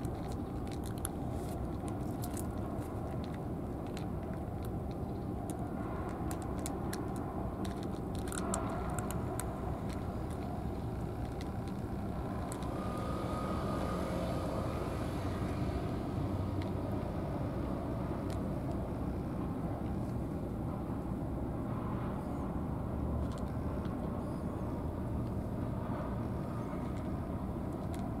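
Steady low rumble of road traffic, with scattered small crunching clicks in the first several seconds from cats chewing dry kibble.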